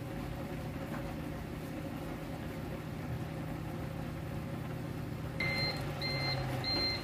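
Steady low hum with a pan of broth simmering on an electric cooktop. About five seconds in, a high electronic beep starts, repeating about every half second, three times.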